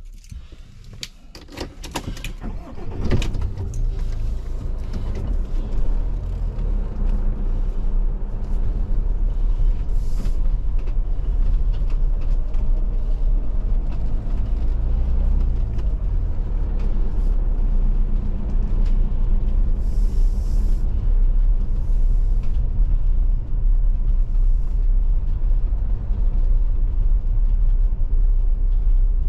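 A few clicks and knocks, then a motorhome's diesel engine starts about three seconds in and runs as the vehicle moves off slowly, heard from inside the cab as a steady low rumble.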